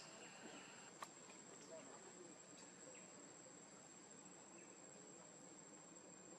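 Near silence, with insects droning in a faint, steady, high-pitched tone and a single faint click about a second in.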